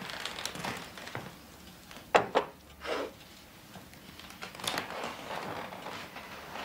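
A vase of flowers set down on a wooden sideboard, with sharp knocks about two seconds in, followed by footsteps and rustling as a person crosses the room to the sofa.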